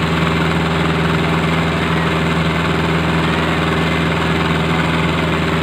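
Diesel engines of two tractors, a Sonalika 750 and a Mahindra Arjun 605, hitched back to back for a tug-of-war pull, running steadily with an even low drone.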